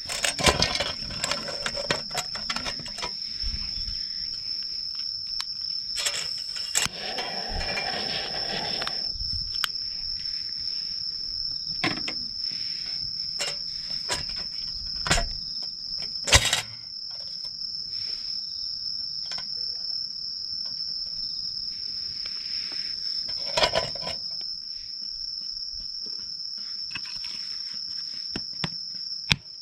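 Insects trilling steadily on one high pitch, with scattered sharp clicks and knocks of things being handled.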